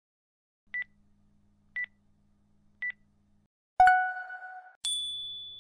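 Countdown timer sound: three short high beeps, one a second apart, counting down the last seconds of a pose. Then a louder, lower ringing tone that fades, followed by a higher ringing tone, marking the end of the pose.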